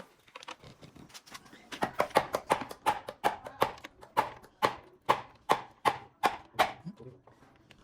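A steady run of sharp knocks or taps, about three a second, starting a couple of seconds in and slowing slightly before stopping near the end, over a faint low hum.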